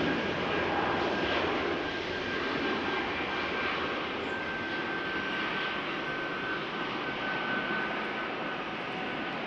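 Jet aircraft engines running, a dense rush of engine noise with a steady high whine through it. It is loudest at the start and eases off slightly over the first few seconds.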